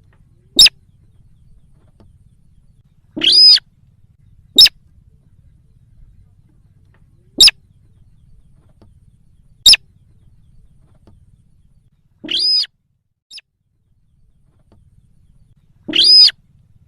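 Bird-lure recording of sintar calls: four very short, sharp single notes a few seconds apart, mixed with three longer, harsher calls of about a third of a second each.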